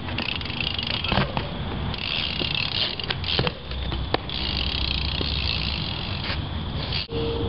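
BMX bike being ridden: steady rolling noise from the tyres, with a few sharp clicks or knocks about one, three and four seconds in.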